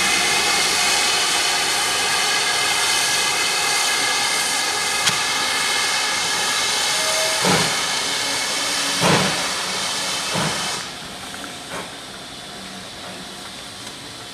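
GWR Manor class steam locomotive No. 7812 pulling away with its train: a loud, steady hiss of steam that cuts off suddenly about eleven seconds in. Heavy exhaust beats come through it about seven and a half, nine and ten and a half seconds in, with a fainter one just after the hiss stops.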